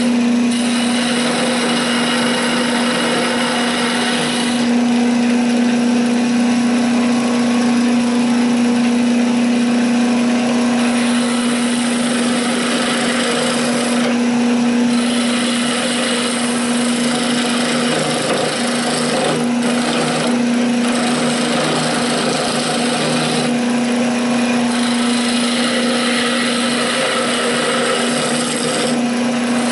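Wood lathe running with a steady hum while a hand-held turning chisel cuts a spinning wooden spindle, giving a steady hiss of cutting that eases off briefly a few times as the tool is moved.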